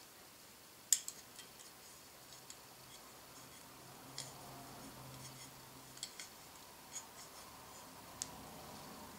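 Scattered light metallic clicks and taps of a small Allen key working a grub screw in an aluminium pulley hub mounted on aluminium extrusion; the sharpest click comes about a second in.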